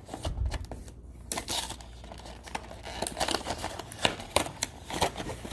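Product box and its packaging being handled: irregular crinkling and rustling with scattered small clicks and taps.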